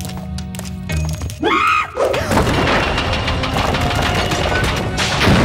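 Cartoon sound effect of a heavy stone door slab coming down over a temple exit and crashing shut, blocking it with rubble. A dense, loud crashing rumble starts about two seconds in and surges again near the end, over background music.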